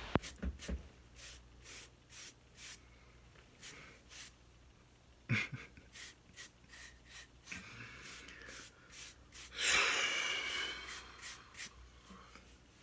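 Handling noise: a run of small clicks and taps, with a sharper knock about five seconds in, then a breathy blow of air near ten seconds.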